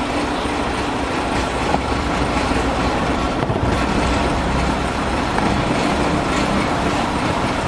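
Dump truck's diesel engine running steadily with the PTO engaged, its turning coupling driving the hydraulic pump that raises the dump bed.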